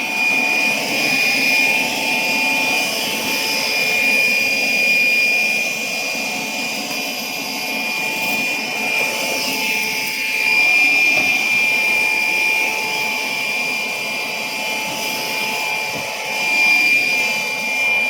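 Air blower running steadily, a high whine over the rush of air.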